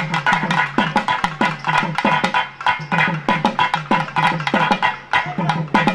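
Live South Indian folk dance music: fast, dense strokes on double-headed barrel drums (thavil-type), over a steady held melodic tone.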